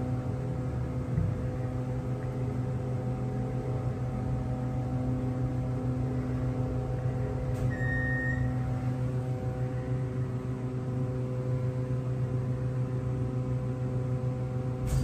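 KONE hydraulic passenger elevator riding down, heard from inside the cab: a steady electric hum throughout, with a short high beep about eight seconds in as the car reaches the first floor, and a click near the end.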